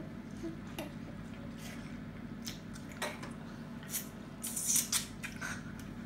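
Short, crisp wet sucking and slurping sounds of people biting and sucking on raw lemon wedges, scattered irregularly, with a small cluster of them about four and a half seconds in, over a low steady room hum.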